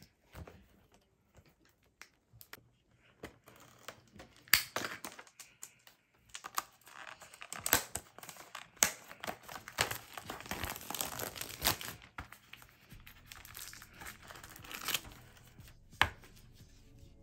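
Thin plastic film and packaging being handled and crinkled, with sharp plastic clicks and snaps in between.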